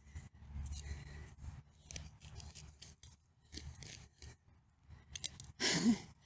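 Dense, matted palm roots rustling and crackling as gloved hands pull and tear at the root ball, in short irregular scratchy bursts, the loudest near the end.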